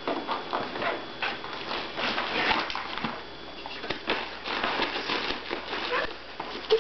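Plastic bags and packed clothes in an open suitcase rustling and crinkling in irregular bursts as an Airedale Terrier noses and paws through them.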